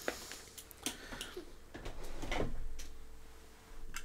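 Small clicks and knocks of hands handling tools and a coax connector on a workbench mat, with a longer scraping rustle about two seconds in.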